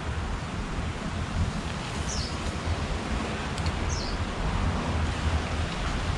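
Wind buffeting the microphone over a steady outdoor noise. A bird gives a short high chirp that falls in pitch, twice, about two and four seconds in.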